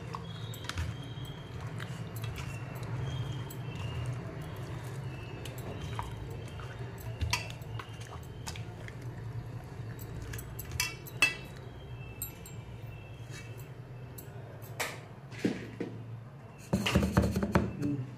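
Raw fish steaks being rubbed with a wet masala marinade in a steel plate by hand. There are scattered light clicks and clinks against the steel over a steady low hum, and louder handling noise near the end.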